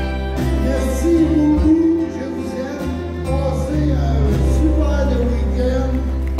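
Live country-western band playing: strummed acoustic guitars over a steady bass line, with a man singing the melody into a microphone through the PA.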